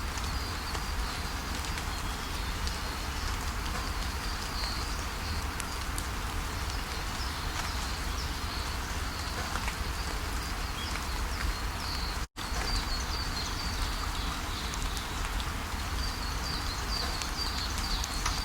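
Steady rushing of a waterfall with small birds chirping on and off over it. The sound cuts out for an instant about twelve seconds in.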